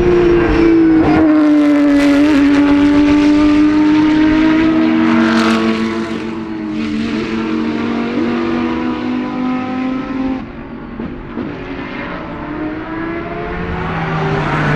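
GT3 race car engines at racing speed, loud: one car's engine note falls slowly over the first ten seconds as it goes by and fades, then another car's note rises near the end as it comes closer.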